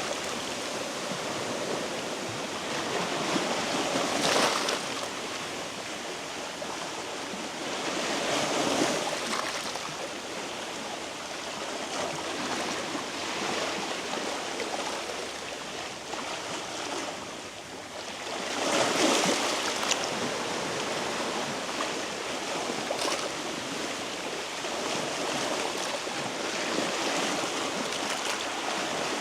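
Sea waves washing over a rocky shore: a steady wash that swells in surges a few times, most strongly about two-thirds of the way through.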